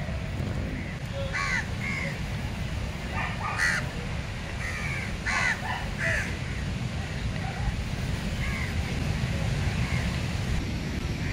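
House crows cawing: a run of short caws in the first six seconds, then a few fainter ones, over a steady low rumble.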